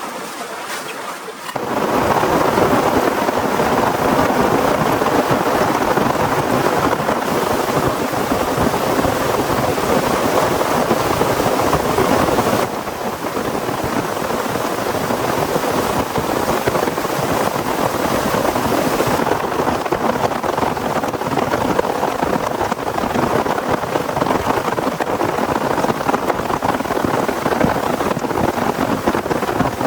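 Heavy rain pouring steadily as a dense hiss. It starts suddenly about a second and a half in and shifts in loudness abruptly twice.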